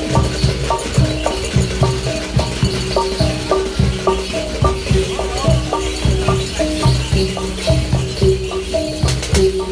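Loud music with a heavy, steady beat and a melody of short stepping notes over it.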